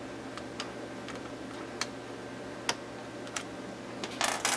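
Scattered light clicks as fingers work the plastic control knobs off the front panel of a Tektronix 465B oscilloscope, with a short rustle of handling noise a little after four seconds in, over a low steady hum.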